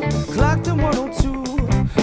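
Band playing an instrumental passage: a lead melody with bends and vibrato, likely electric guitar, over steady bass notes and a drum kit beat, in a funk/reggae groove.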